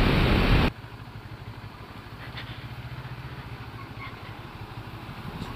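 Wind and road noise from a motorcycle at speed, cutting off abruptly under a second in; then a motorcycle engine running steadily at low revs.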